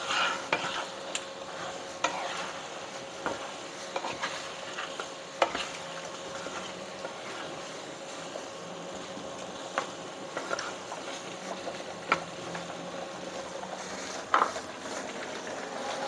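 Wooden spatula stirring a simmering coconut-milk curry in a nonstick frying pan: scattered scrapes and taps of the spatula against the pan over a steady, quiet sizzle of the bubbling sauce.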